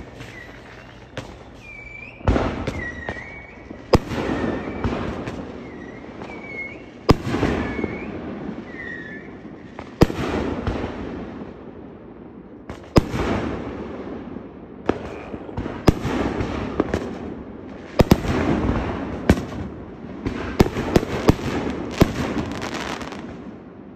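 Neighbourhood fireworks: sharp bangs every two to three seconds, each trailing off over a second or two, with a quick run of several bangs near the end.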